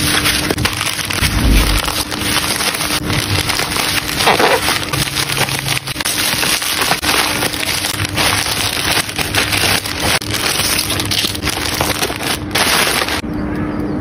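Plastic packaging being handled, crinkling and crackling continuously: bubble wrap being pressed and rustled, then a plastic poly mailer bag being handled.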